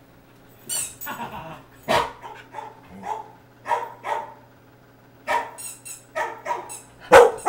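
A dog barking in an irregular series of about a dozen short barks, the loudest near the end.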